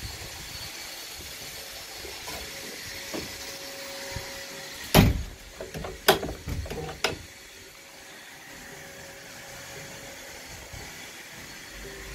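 A stainless steel lever latch on a boat being worked by hand: a sharp clack about five seconds in, then several lighter clicks over the next two seconds, over a steady low hiss.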